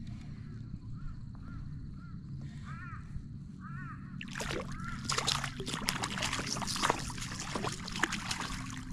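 A series of short rising-and-falling calls. Then, from about four seconds in, a hooked catfish splashes and thrashes at the water's surface beside the kayak, with loud irregular splashing.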